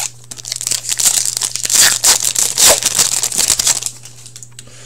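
Wrapper of an Upper Deck Artifacts hockey card pack being torn open and crinkled by hand: a dense crackling rustle lasting about three and a half seconds, stopping near the end.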